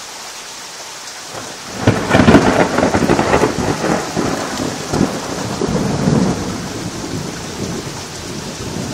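Steady rain, then about two seconds in a loud crackling thunderclap that rolls on as a long rumble, slowly fading away.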